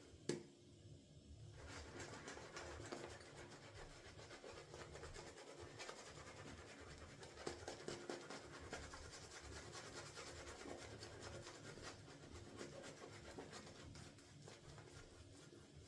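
Shaving brush working soap lather over a stubbly face: faint, steady scratching and rubbing of the bristles against skin and stubble.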